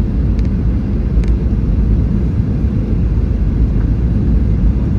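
Steady low rumble of a jet airliner's cabin in flight, engines and airflow, with a few faint clicks in the first second or so.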